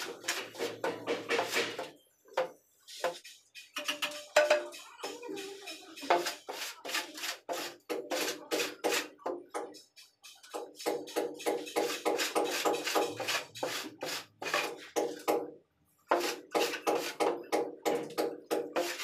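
Metal straight edge scraped back and forth over a sand-cement mortar bed in quick, rhythmic rasping strokes, screeding it level for floor tiles. It stops briefly about two seconds in and again near the end, then resumes.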